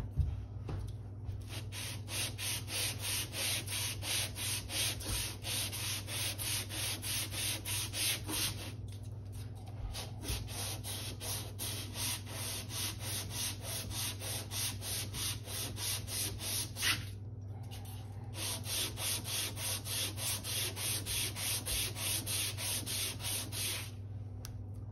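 Cylinder head of a Kohler Aegis LH775 engine being sanded flat by hand, sliding back and forth over 400-grit sandpaper on a sheet of glass at about two to three strokes a second. It is lapping the head's gasket face true and showing up any warped spots. The strokes go lighter through the middle and pause briefly about seventeen seconds in.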